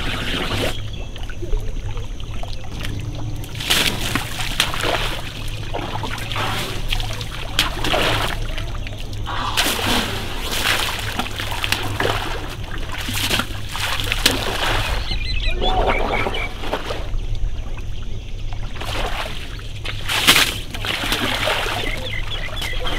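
Asian elephants sloshing and splashing in a wet mud wallow: irregular wet splatters every few seconds, over a steady low hum.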